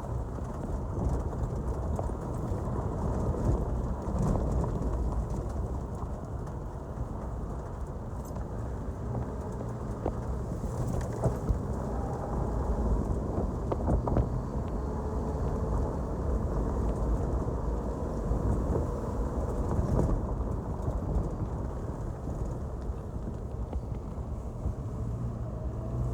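Off-road vehicle driving over a rough forest dirt road, heard from inside: a steady low engine and road rumble with many small knocks and rattles from the bumps.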